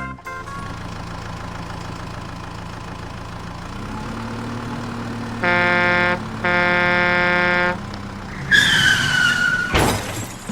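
Cartoon vehicle sound effects: a steady low engine hum, then two horn honks about halfway through, a short one followed by a longer one. Near the end a falling whistle-like tone and a sharp knock.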